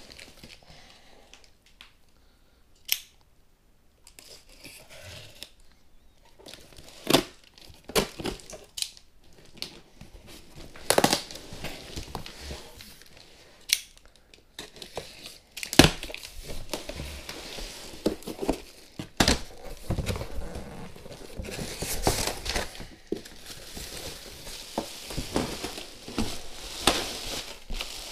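A large cardboard shipping box being slit open with a folding knife and handled, with scattered sharp taps, scrapes and tearing of cardboard and tape. In the later part, a plastic garment bag crinkles as it is pulled out of the box.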